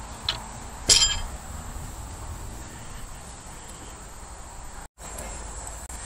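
A sharp metallic clink about a second in, with a fainter click just before it, over a steady outdoor background.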